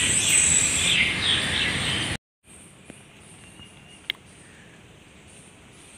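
Outdoor morning ambience: wind rushing through trees, with birds and insects chirping. About two seconds in it cuts off abruptly to a faint background of insects chirping, with a single sharp click about four seconds in.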